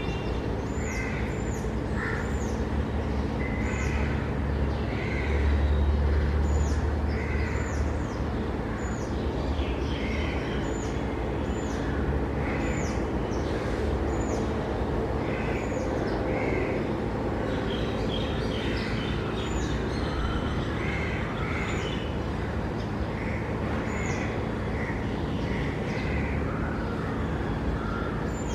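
Birds calling repeatedly: short high chirps about once a second, with lower calls mixed in, over a steady low rumble.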